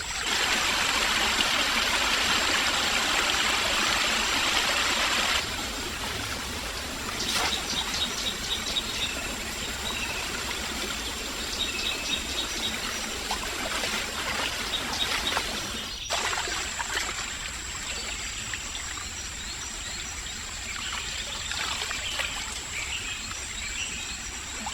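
Forest stream water running and trickling, louder for the first five seconds or so, then a quieter steady trickle.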